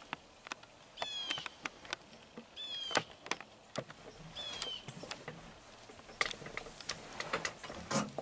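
A bird's short chirps, three or four of them about a second and a half apart, each bending downward, over scattered sharp clicks and crackles.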